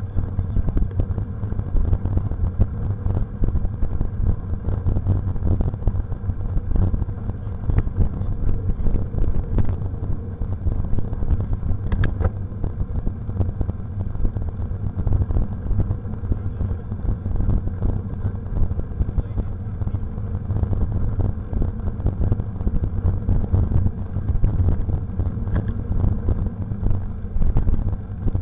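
Low wind buffeting and rumble on a bike-mounted camera's microphone while a mountain bike rides a dirt path, mixed with tyre-on-trail and bike rattle. One short high-pitched squeak comes about twelve seconds in.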